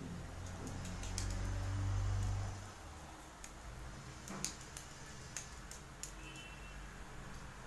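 Fingers massaging coconut-oiled hair and scalp (champi) make a scatter of sharp, wet clicks and smacks, several a second, mostly between about three and six seconds in. A low rumble comes first, in the opening two to three seconds.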